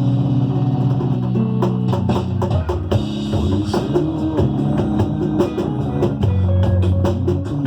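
Batucada drumming: low drums ring on and shift in pitch every second or so under a dense run of quick, sharp percussion strokes.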